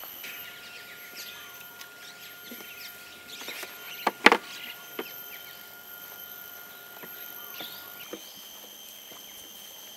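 Outdoor campsite ambience: faint bird chirps over a steady background hum of thin high tones. Two sharp clicks come close together about four seconds in.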